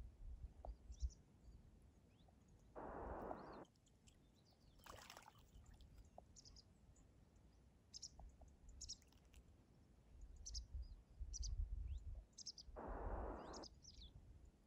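Faint scattered chirps of small birds over a low wind rumble on the microphone, with two short splashes, about three seconds in and near the end, from a Harris hawk bathing in the shallows.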